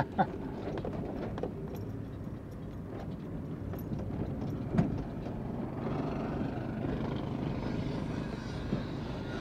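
Fiat Fiorino van driving slowly, its engine and tyre noise heard from inside the cab, with a single short knock about five seconds in.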